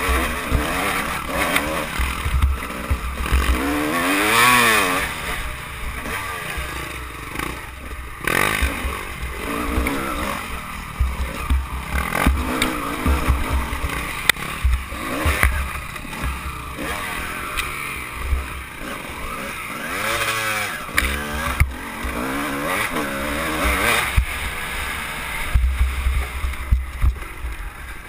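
Off-road race ATV engine revving up and down hard as it climbs and descends a rough dirt trail, heard on board with heavy wind buffeting on the microphone.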